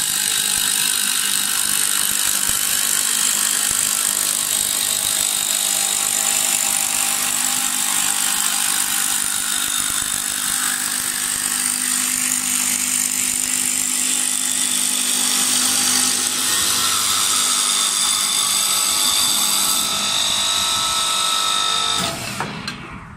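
Automatic back-knife wood lathe spinning a wooden chair spindle as its long blade cuts it to shape: a loud, steady machine whine with the hiss of wood being cut. Near the end the sound falls away sharply as the cut finishes and the machine stops.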